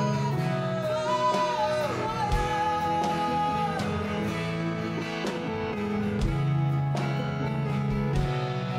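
Live gospel band music led by guitar, with a held melody line that slides between notes over a steady accompaniment.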